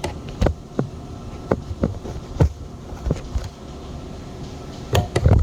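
Irregular knocks and clunks of things being handled and set down, about nine over a few seconds with the loudest pair near the end, over a steady low mechanical hum.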